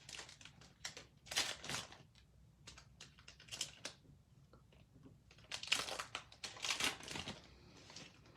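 Trading cards handled by hand, sliding and scraping against one another in short rustling strokes as a pack is flipped through, with a louder run of strokes near the end.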